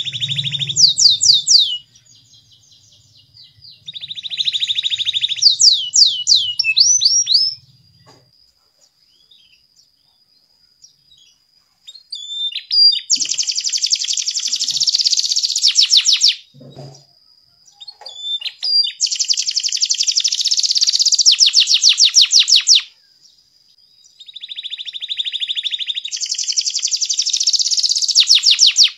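Domestic canary singing in long phrases of fast trills and rolling notes, mixed with sweeping whistles that rise and fall, with a few seconds' pause about a third of the way through.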